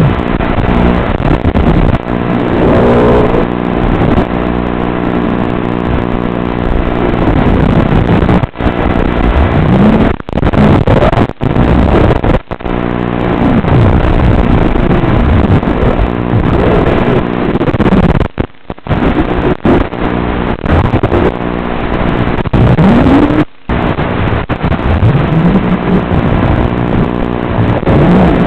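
FPV quadcopter's Brotherhobby 2205 1750KV brushless motors and propellers whining, the pitch rising and falling over and over with the throttle. The sound briefly drops away several times.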